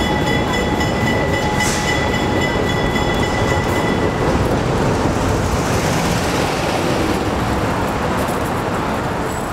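Diesel switcher locomotive rumbling past at close range at walking pace, with a steady high squeal from the train that stops about four seconds in.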